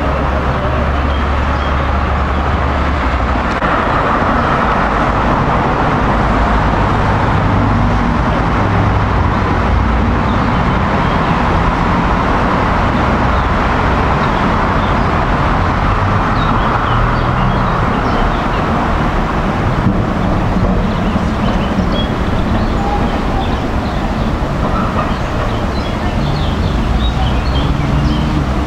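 Steady urban street noise with a historic tram rumbling along its tracks as it slowly approaches, cars running in the background.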